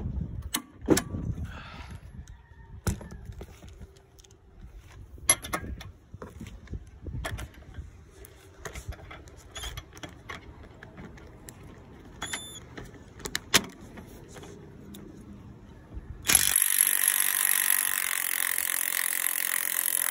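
Scattered clicks and clanks of hand tools and socket being handled. About sixteen seconds in, a Lvidian cordless impact wrench hammers loudly for about four seconds and then stops abruptly. It is breaking loose a bolt torqued to 150 foot-pounds.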